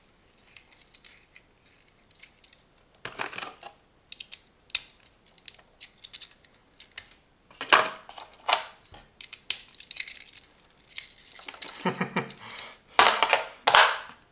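Small steel sockets and tool pieces clinking and clicking against each other and the plastic case as they are handled, with irregular taps and short high metallic rings.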